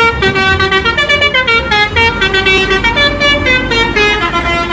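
Bus telolet horn playing a tune: a multi-note horn sounding several steady tones together, stepping from note to note without a break.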